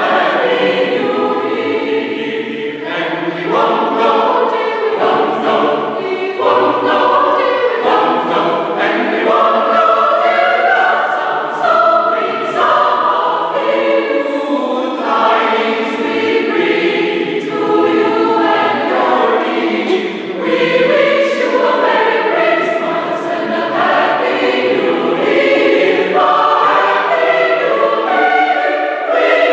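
Mixed choir of women's and men's voices singing together, holding sustained chords that move every second or two, in a large church.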